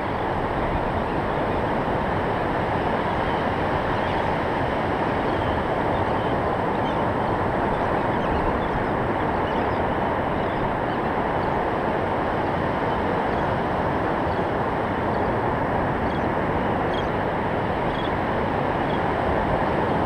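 Ocean surf breaking and washing up a sandy beach: a steady, even rush of noise.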